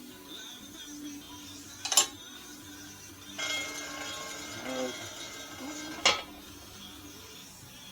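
Metal clanking: two sharp clanks about four seconds apart, with a stretch of rattling and scraping between them, from metal band saw parts and tools being handled.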